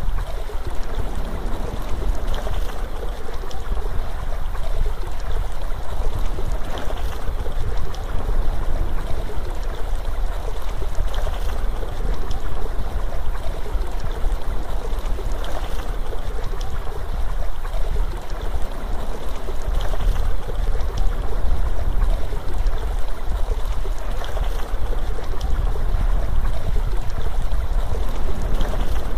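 Steady, unbroken rushing water like a flowing stream, with a deep low rumble underneath.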